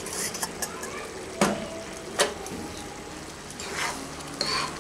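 Thick khichuri of rice and red lentils bubbling in a pan while a metal spoon stirs it, knocking sharply against the pan twice about one and a half and two seconds in.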